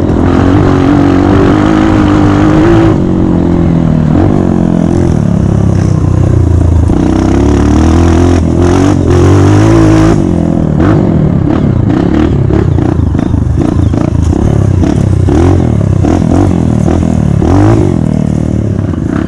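Dirt bike engine running under load on a trail, its pitch repeatedly rising and falling as the throttle is opened and closed.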